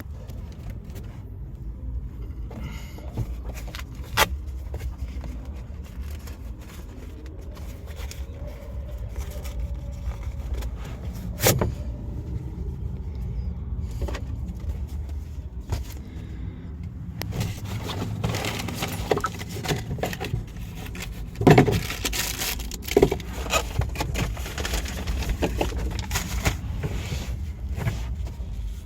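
Scattered knocks and clicks over a steady low rumble, busier in the second half, with the loudest knocks about twenty-one and twenty-three seconds in.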